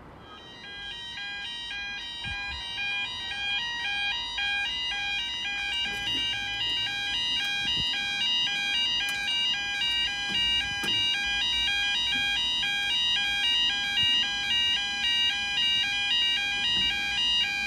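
Level-crossing yodel alarm, a warbling alarm switching back and forth between two pitches, sounding as the full barriers lower across the road to warn of an approaching train. It starts about half a second in and grows louder over the first few seconds.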